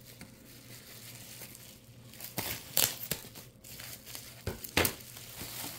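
Bubble-wrap packaging crinkling and tearing as it is pulled and ripped open, with louder sharp rustles about two and a half seconds in and again near five seconds.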